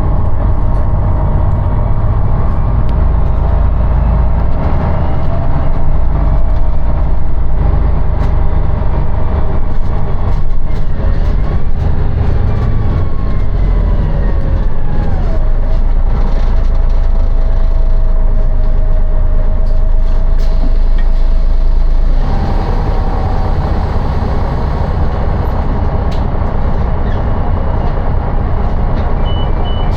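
A city bus in motion, heard from inside: a steady engine and drivetrain rumble with whining tones that slide up and down in pitch as it changes speed. The low rumble eases about two-thirds of the way through. Near the end, a vehicle's reversing beeps start.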